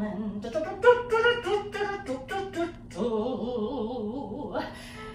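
A voice singing wordless syllables with no accompaniment: a run of quick, short notes, then a longer wavering phrase.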